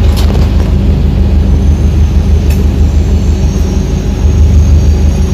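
Diesel train engine running steadily, a loud, deep, pulsing drone. A faint high whine joins it about a second and a half in.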